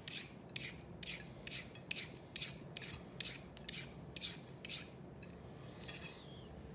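Vegetable peeler scraping down a carrot in quick strokes, about three a second, stopping about five seconds in.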